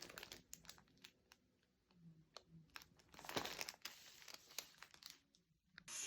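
Faint crinkling and scattered small crackling clicks of something being handled, a little louder about three and a half seconds in.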